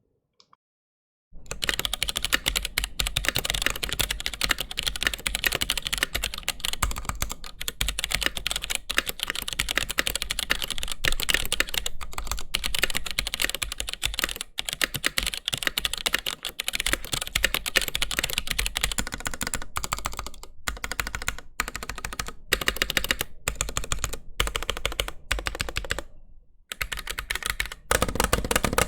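Fast, continuous typing on a Glorious GMMK Pro keyboard with stock Gateron Red linear switches and Glorious PBT keycaps, starting about a second and a half in, with a few brief pauses near the end.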